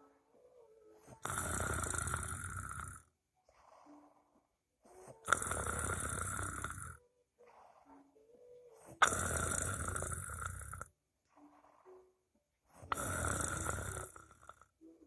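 A sleeping person snoring: four loud snores, each about two seconds long, come roughly every four seconds, with faint breaths between them.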